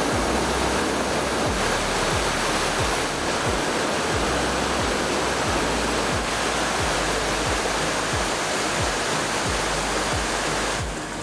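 River water rushing over a weir in a steady, loud hiss, with background music with a regular low beat underneath. The rush stops suddenly just before the end.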